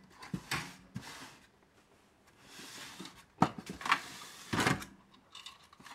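Plastic clunks and scrapes as the open plastic housing of an electrocardiograph and its removed printer module are handled and shifted on a wooden bench. A soft scrape comes about halfway through, followed by several sharp knocks.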